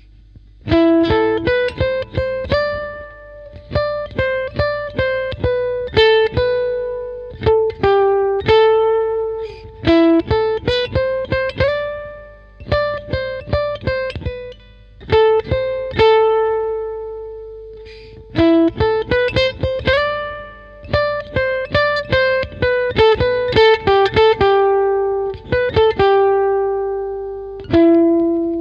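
Background music: a guitar playing a melody of single plucked notes in quick phrases, each phrase ending on a longer ringing note.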